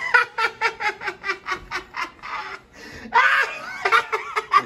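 People laughing in a quick run of short 'ha' pulses. The laughter breaks off briefly and comes back louder about three seconds in.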